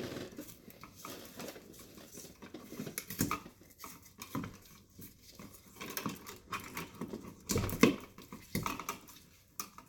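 Scattered clicks, taps and metallic clinks of hand tools and electrical wire being handled while grounding wires are worked on, with a louder knock about eight seconds in.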